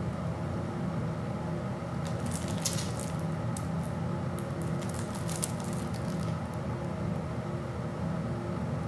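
Shrink-wrap plastic on a Blu-ray case crinkling and crackling in short bursts as the case is turned over in the hands, over a steady low hum.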